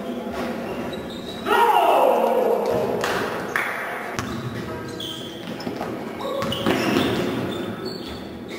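Basketball bouncing on a gym floor with players' voices in an echoing gymnasium; about a second and a half in, a loud shout falls in pitch.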